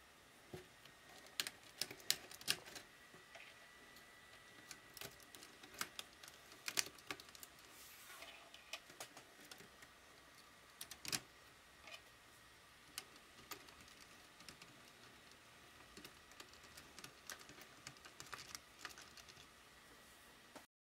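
Lego Technic plastic pins and beams clicking as they are pressed together by hand: faint, irregular small clicks and snaps, a few louder ones about two seconds in and again near seven and eleven seconds.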